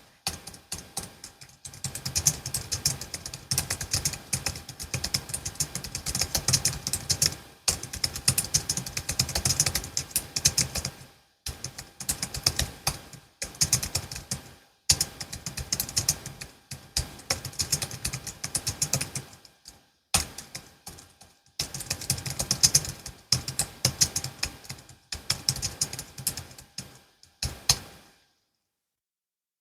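Typing on a Logitech MX Keys S low-profile scissor-switch keyboard: quick runs of key clicks in bursts with short pauses between them. The typing stops about a second and a half before the end.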